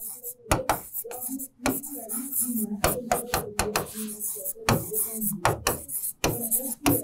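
Pen tip tapping and scratching on a smart-board screen while words are handwritten: a quick, irregular run of clicks and short scrapes.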